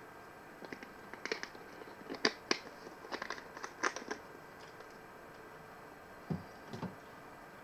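Small clicks and scratchy rustles from tools and parts being handled on a workbench during a laptop motherboard repair, coming in a cluster, then two soft, duller knocks near the end.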